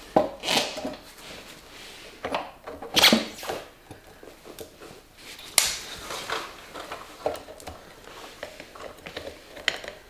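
Metal parts and tools being handled at a motorcycle's rear wheel: scattered clinks and knocks, with a few louder ones about half a second, three seconds and five and a half seconds in.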